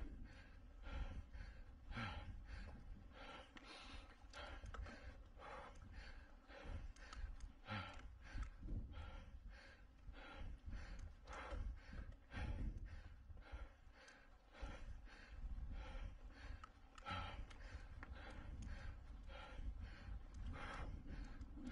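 Mountain biker breathing hard under race effort, with heavy exhalations about every second or so over a low steady rumble.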